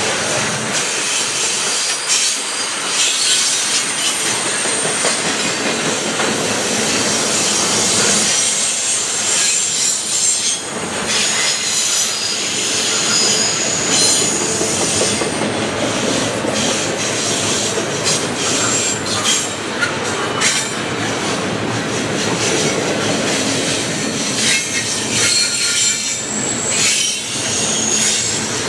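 Double-stack intermodal freight cars rolling past with a steady rumble and clatter of steel wheels on rail. High-pitched wheel squeal rises and fades over it.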